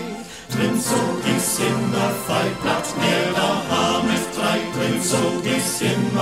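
Choir singing a Vogtland folk song. There is a brief dip about half a second in, then a new phrase starts loudly.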